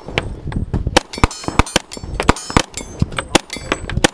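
Gunshots on a firing range: sharp single cracks, unevenly spaced at about three or four a second.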